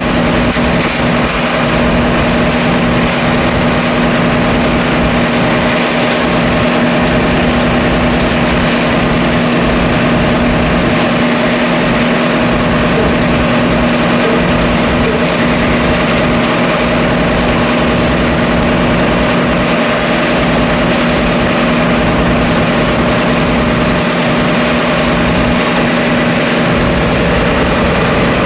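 Steady machinery noise with a constant hum, unchanging in level throughout.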